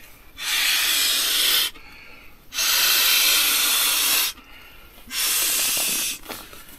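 A person blowing air by mouth into the valve of an inflatable camping pillow, inflating it. Three long breaths, each a steady rush of air lasting a second or more, with short pauses between for inhaling.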